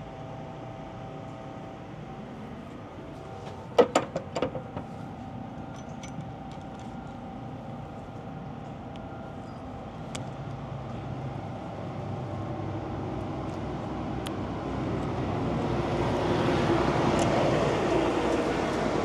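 A quick run of four or five sharp metal clanks from a trailer's rear-door locking bars and handle hardware, over a steady engine hum. A few lighter ticks follow, and a rushing vehicle noise builds steadily through the second half.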